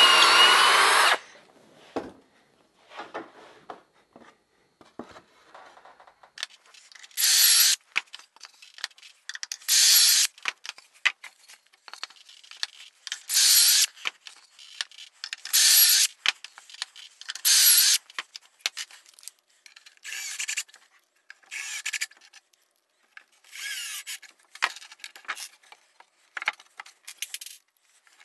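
Milwaukee cordless drill running a pocket-hole bit into red cedar boards through a pocket-hole jig, in separate bursts: a long one that stops about a second in, then five short, loud bursts a couple of seconds apart, then several shorter, fainter ones near the end.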